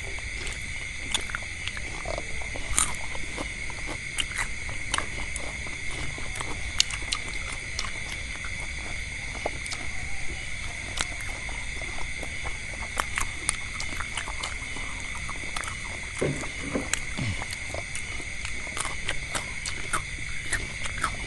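Eating sounds: irregular clicks, taps and crunches of people chewing fried meatballs and vegetables and handling utensils, over a steady high-pitched drone.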